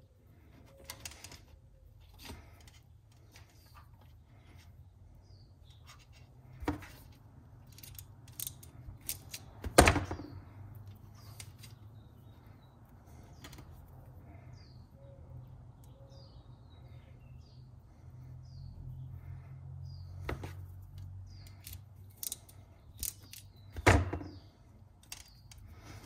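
Hand crimp tool and wire handling: scattered small clicks as Deutsch crimp pins are crimped onto wire ends, with two sharper knocks, one about ten seconds in and one near the end, over a low steady hum.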